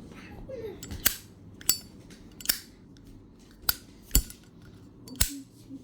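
Zippo lighter being handled: six sharp metallic clicks spaced unevenly, the clack of its hinged metal lid snapping open and shut.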